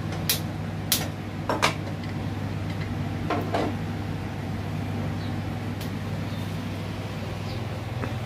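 Aluminium pressure cooker clanking as it is handled and set down on a gas stove: a handful of sharp metal knocks in the first few seconds, over a steady low hum.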